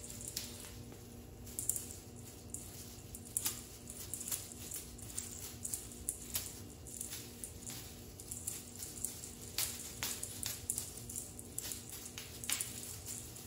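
Irregular short crinkles and light taps of a wand cat toy's shiny tinsel strands being swished and flicked over a tile floor, a few a second with louder flicks now and then.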